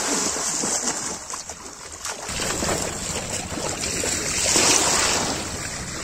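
Hands splashing and thrashing in shallow water for the first two seconds, then a steady rush of wind and water at the shoreline.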